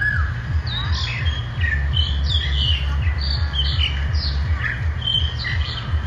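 Several birds chirping and calling, many short overlapping chirps and quick sliding notes, over a steady low rumble.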